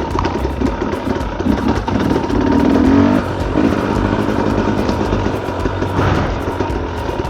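Off-road dirt bike engine working hard on a trail, the throttle opening and closing in a choppy rhythm, with a rev that climbs in pitch about two to three seconds in.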